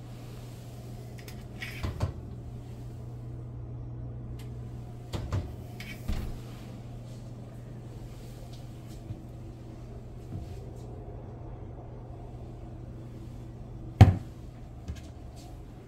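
Wooden kitchen cabinet door pulled open by its knob, with one sharp clack near the end and a smaller knock just after. A few softer knocks come earlier, over a steady low hum.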